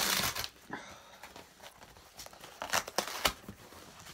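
Cardboard packaging being torn open by hand: a loud rip at the start, then crinkling and a few sharp snaps of the cardboard about three seconds in.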